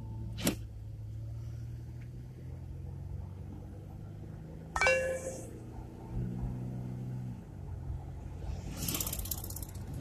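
A car's engine hum and road noise heard from inside the cabin as the car pulls away. There is a sharp click about half a second in and a short, sharp squeak-like sound near the middle. The engine hum grows louder for about a second after the halfway point.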